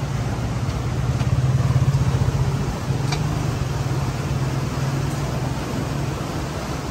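A steady low mechanical hum from a running machine, swelling slightly in the first couple of seconds, with a faint click about three seconds in.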